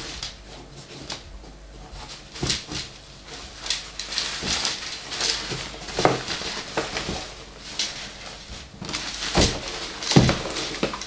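Rustling and swishing of a soft fabric rod case being handled and shifted on a cardboard box, with a few dull knocks against the box, the loudest near the end.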